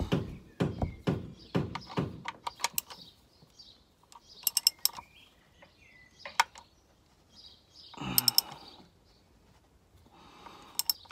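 A socket ratchet tightening a car's oil drain plug through an undertray access hole. A few knocks as the socket and extension go on, then short runs of quick ratchet clicks several times over. Faint bird chirps can be heard in the background.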